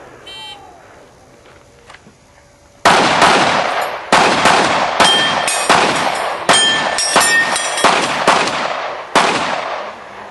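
Springfield XD-9 9mm semi-automatic pistol fired in a rapid string of about a dozen shots over some six seconds. The shots come in quick pairs and short clusters with brief pauses between, each followed by a short echo.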